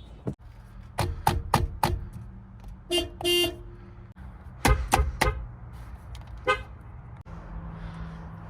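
Subaru car horn tapped in a string of short beeps, with one longer honk about three seconds in and a last single beep near the end, over a low steady hum.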